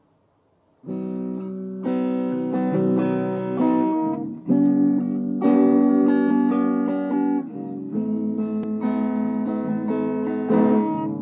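Guitar intro music: strummed chords ringing and changing every second or two, starting about a second in.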